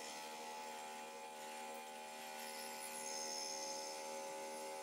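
Bandsaw running with a steady hum while a white plastic sheet is pushed into its blade and cut.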